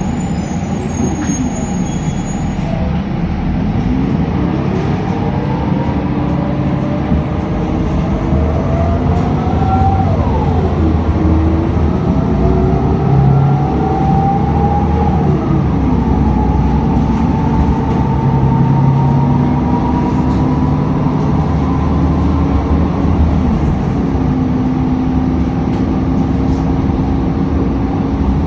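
City transit bus heard from inside as it accelerates: its engine and drivetrain whine rises in pitch, drops sharply at gear changes about ten and fifteen seconds in, then holds steady as the bus cruises, over a continuous low rumble and road noise.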